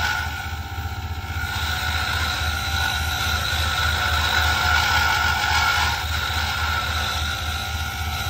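Small wood lathe running with a steady motor hum and whine while a hand-held turning tool cuts a spinning pen blank, the cutting hiss dipping briefly about a second in and then holding steady.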